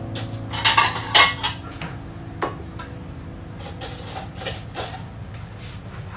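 Plates and cutlery clinking and clattering on a table as a plate is set down: a few knocks in the first second and a half, then another cluster about four seconds in.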